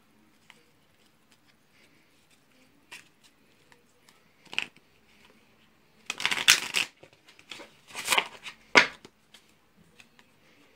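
A deck of playing cards being riffle-shuffled by hand: light taps and clicks at first, then two riffles lasting about a second each, around six and eight seconds in, followed by a sharp snap of the cards.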